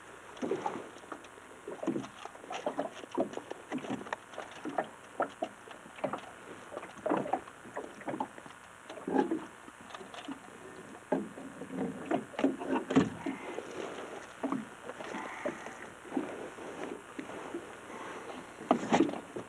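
Irregular knocking, clatter and rustling of gear and hands on a small fishing boat, several small knocks a second, with louder knocks about thirteen seconds in and just before the end.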